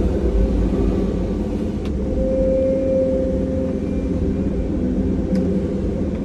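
Caterpillar 340 excavator's diesel engine running steadily at working speed, with a steady whine that grows stronger about two seconds in.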